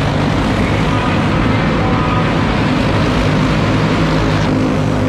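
A pack of clone-class racing go-karts running at speed together, the steady loud drone of their small single-cylinder four-stroke clone engines filling an indoor arena.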